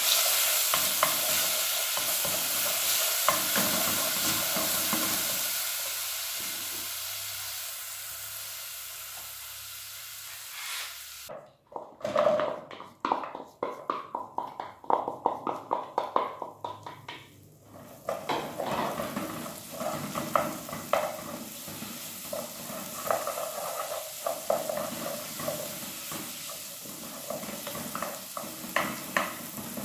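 Garlic paste sizzling in hot oil in a nonstick pot while it is stirred with a wooden spoon, the sizzle slowly dying down. After a break about a third of the way in, chopped onion sizzles in the pot, with many sharp knocks and scrapes of the wooden spoon against the pot as it is stirred.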